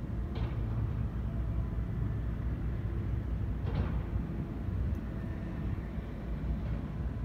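Distant dredging work: the diesel engines of an excavator on a barge and a tugboat running as a steady low rumble, with two brief scraping sounds, about half a second and about four seconds in.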